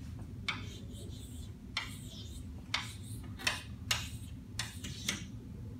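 Chalk writing numbers on a blackboard: about seven short, sharp taps and scratches as each stroke of the chalk hits and drags across the slate.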